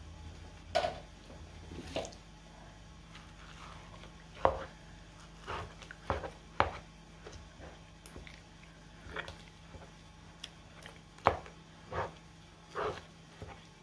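A plastic spoon knocks and scrapes against a nonstick wok while breaking up frozen grated ube in coconut milk, with wet squelches. The knocks come at irregular intervals, about a dozen in all.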